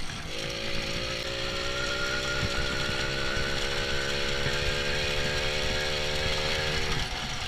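Small moped engine running steadily under throttle; its note climbs a little in the first couple of seconds, holds, then drops away near the end as the throttle comes off.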